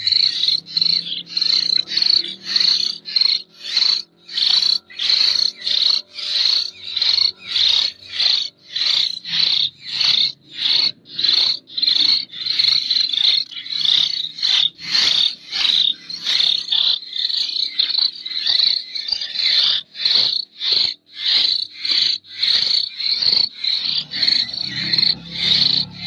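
Hill myna nestlings begging while being hand-fed: a chorus of short, rasping calls repeating about twice a second.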